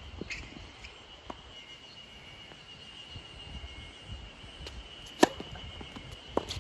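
Tennis ball struck with a racket on a serve: one sharp pop about five seconds in, followed by a fainter hit just over a second later.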